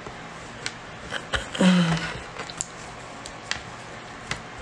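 Light scattered clicks and taps, about eight in a few seconds, with a short wordless vocal sound from a woman about a second and a half in.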